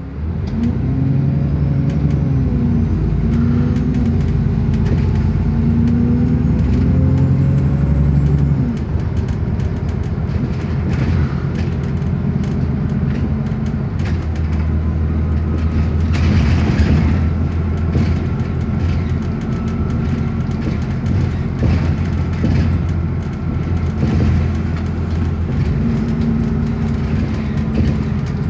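Bus engine heard from inside the moving bus, pulling strongly for the first eight seconds or so, then easing to a steadier, lower drone. Frequent small clicks and rattles come from the cabin.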